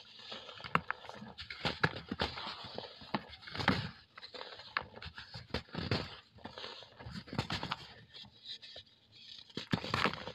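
Dry cast cement block being crumbled by hand: irregular crunches and crackles as chunks break apart, with crumbs and powder falling back into the basin.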